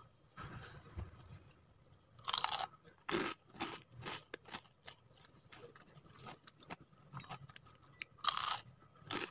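Crunchy bites into crispy fried wafer nuggets coated in breadcrumbs: one loud bite about two seconds in and another near the end, with smaller chewing crunches between.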